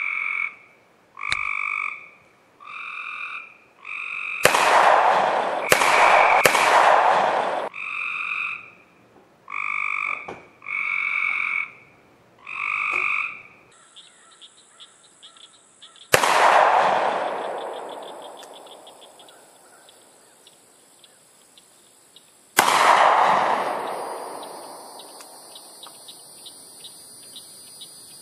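A run of evenly spaced harsh calls, about one a second, through the first dozen seconds, with a few louder noisy bursts among them. Then two Smith & Wesson Governor revolver shots about six seconds apart, each trailing off in a long echo, over a steady high insect buzz.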